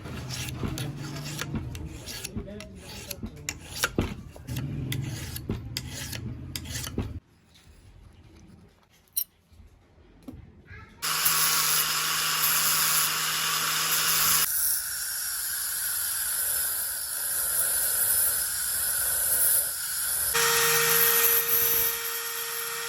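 Hand filing and rubbing on the rusty metal of a pocket knife for about seven seconds, an irregular scraping with scattered clicks. After a short lull, a steady machine noise starts about eleven seconds in, shifts character near fifteen seconds and picks up a steady tone near the end.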